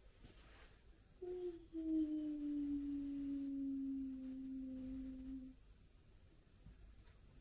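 A child humming one long note: a short higher note first, then a held tone for about four seconds that sinks slightly in pitch.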